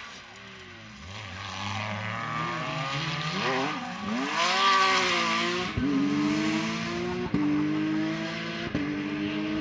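Rally car engine accelerating hard, its pitch climbing and then dropping sharply three times as it shifts up through the gears. A rush of noise is loudest about four to five seconds in, as the car comes closest.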